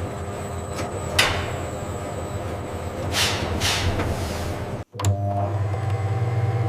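Factory machinery running with a steady low hum, broken by short hisses of air; a little before the end it cuts off abruptly and a different machine hum with a few steady tones takes over.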